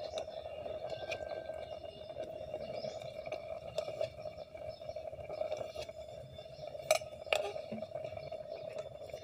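Metal ladle clinking against an aluminium cooking pot as it stirs and scoops fish stew, with scattered light clicks and two sharper knocks about seven seconds in, over a steady low hum.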